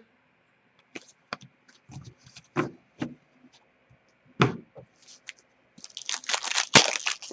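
Scattered light taps and clicks of trading cards and packs being handled on a glass counter, then, about six seconds in, a dense crinkling and tearing as a foil card pack is ripped open.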